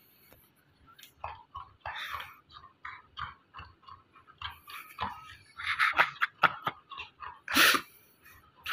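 A golden retriever mouthing and biting a ring toy that has been around its neck, giving irregular wet chewing clicks and snuffles. A louder burst of noise comes near the end.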